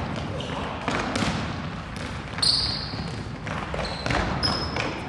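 Futsal play on a wooden gym floor: a ball kicked and bouncing several times, with a few short high squeaks of players' shoes, all echoing in the hall.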